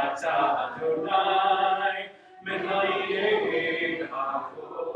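Prayer sung by a male song leader in two long held phrases, with a short break about two and a half seconds in.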